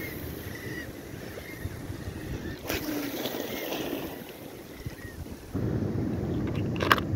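Wind buffeting the microphone over sea water washing against rocks, with a few faint, short, high squeaks. The wind noise jumps louder abruptly near the end.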